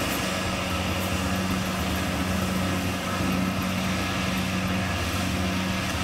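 Rice combine harvester running steadily as it cuts through standing rice: an even mechanical hum with a constant tone.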